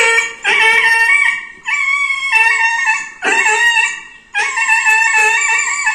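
A puppy crying out in a string of about five long, high-pitched yelps, each lasting nearly a second with short breaks between them. It is in distress at being given an injection.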